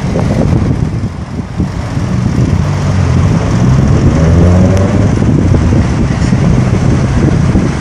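A motor vehicle engine running under a loud, noisy rumble, its pitch rising slightly about halfway through.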